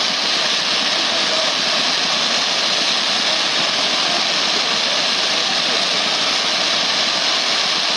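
Fireworks giving off a loud, steady hiss, a continuous high spray of sound with no separate bangs.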